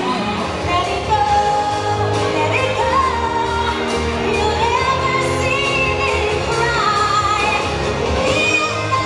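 Pop song with a sung vocal melody over a steady pulsing bass.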